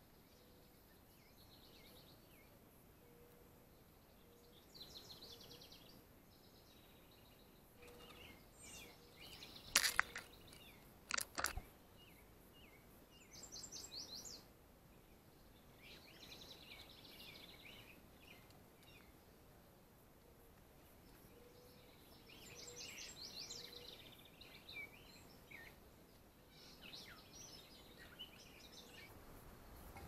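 A house wren singing: short phrases of rapid trilled high notes, repeated every few seconds. Two sharp knocks come about a third of the way in, louder than the song.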